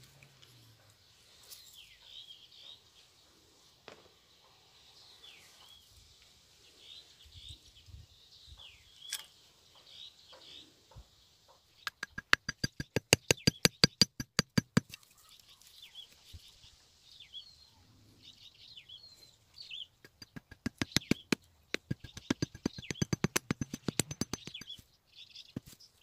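Small birds chirping in short high notes throughout, with two loud bursts of rapid, even clicking rattle, about ten clicks a second, lasting roughly three and five seconds, near the middle and toward the end.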